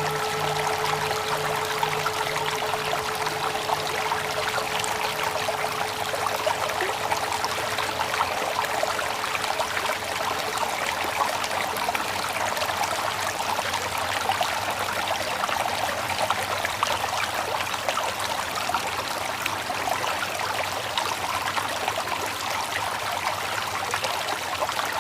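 Water flowing steadily, like a small stream or trickle. Over the first several seconds the ring of a struck mindfulness bell dies away, its low tone pulsing slowly as it fades.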